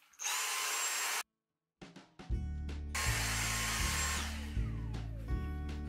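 Two short stretches of steady mechanical whirring with a thin high whine, like a small motor running. The first is cut off abruptly, and background music with a regular bass pulse comes in under the second.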